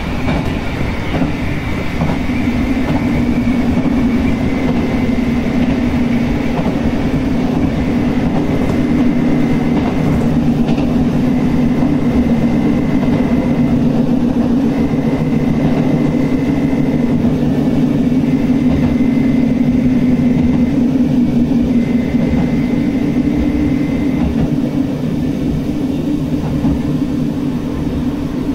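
Train running along the track at speed: a steady low hum and rumble of the wheels on the rails, with a faint high whine that comes and goes.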